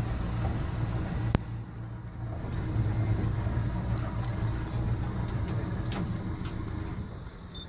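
A boat's engine idling steadily with a low hum, easing off near the end, and a sharp click about a second and a half in.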